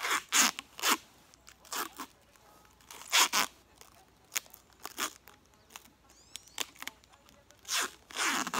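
Tuck Tape sheathing tape pulled off the roll in repeated short rips as it is wrapped around wooden poles.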